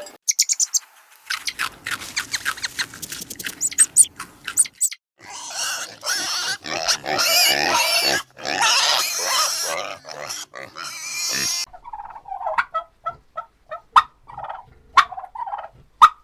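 Pigs grunting and squealing in a noisy jumble, followed near the end by a run of short, separate animal calls.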